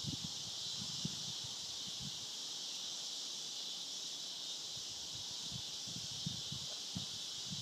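Steady, high-pitched drone of an insect chorus, with soft, irregular puffs of wind buffeting the microphone underneath.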